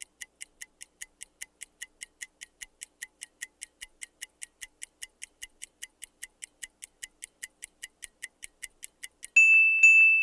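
Countdown-timer sound effect: a clock ticking steadily at about four ticks a second. Near the end it gives way to a loud, steady, high ringing tone about a second long, marking that the time is up.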